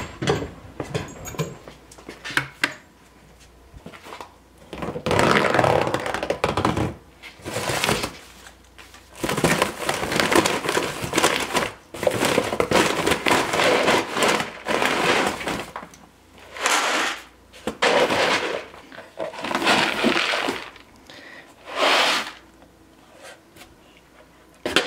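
Feed sack rustling and crinkling in repeated bursts of a second or two as it is opened and handled and a hand reaches in for chicken feed. A few footsteps on wooden stairs come first.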